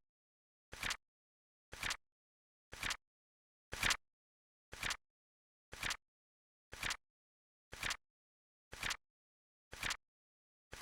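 Flip clock sound effect: a short flip click about once a second, evenly spaced, with dead silence between.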